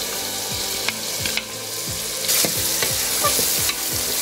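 Chopped onions sizzling in hot oil in an aluminium pressure cooker while a wooden spatula stirs them, knocking and scraping on the pan bottom about three times a second. The sizzle gets a little louder about two seconds in.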